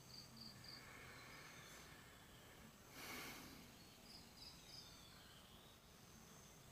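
Near silence: faint background hiss with two short runs of three or four high, quick chirps, one at the start and one about four seconds in, and a brief soft rustle about three seconds in.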